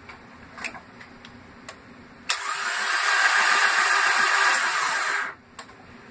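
Starter motor cranking a Jeep Cherokee engine with its spark plugs out. A smooth, steady whir with no compression pulses starts suddenly about two seconds in and stops sharply three seconds later. It is smooth enough to sound like the starter spinning on its own, though the engine is in fact turning over freely.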